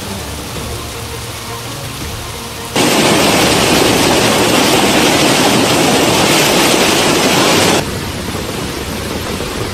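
Fast-flowing floodwater rushing, a steady dense hiss of water. It jumps sharply louder about three seconds in, stays loud, and falls back about eight seconds in.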